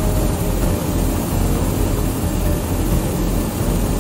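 Helicopter engine and rotor noise: a loud, steady rumble with a faint whine.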